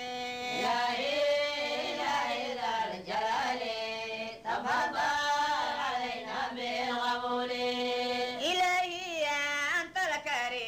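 Voices chanting an Arabic devotional poem in praise of the Prophet Muhammad, in long, held, ornamented notes that glide between pitches.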